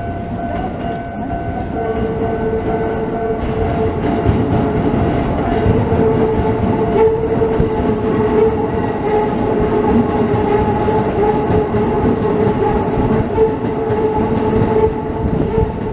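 Keisei Kanamachi Line electric train running over a level crossing, wheels clattering over the rail joints, with a steady motor whine. The crossing's warning bell rings at the start and stops after about three seconds.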